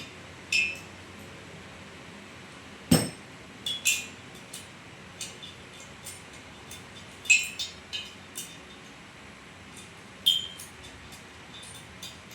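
Metal tools and engine parts clinking and tapping in an irregular series of light, sharp clinks, with one heavier knock about three seconds in.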